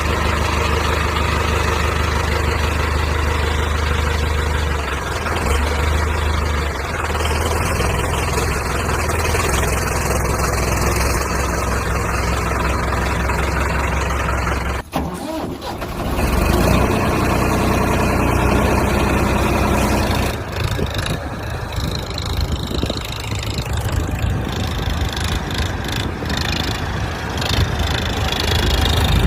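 Engine running steadily. About halfway through the sound drops out briefly, then it comes back rougher and more uneven.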